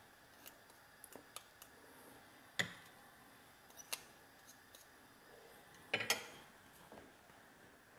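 Scattered light clicks and taps of a metal fork against a ceramic plate as soft cheese is worked with it. The loudest pair of taps comes about six seconds in.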